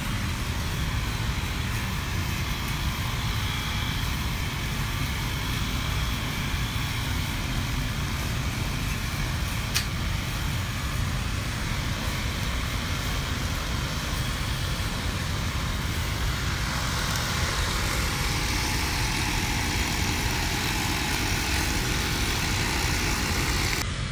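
Petrol brush cutter running steadily as it trims grass, mixed with the continuous rumble of street traffic.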